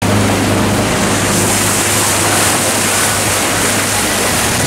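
Boat running under way: a steady engine hum under a loud, even rush of wind and water.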